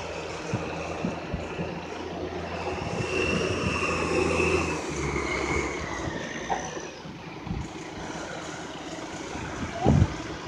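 Diesel tractor engine running steadily, with a high whine that slides down in pitch about halfway through. A sharp knock comes near the end.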